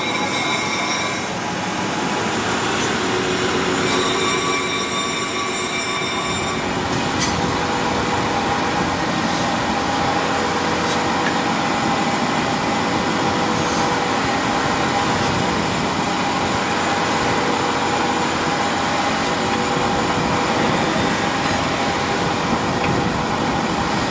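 A steel knife blade is ground against a spinning abrasive wheel, a rough grinding hiss with high whining tones, for the first six or seven seconds. Then the wheel runs on with a steady hum while the blade is held off it.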